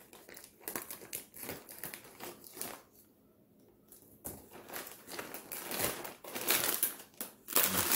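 Plastic snack bag crinkling as it is handled. It stops briefly about three seconds in, then comes back louder near the end.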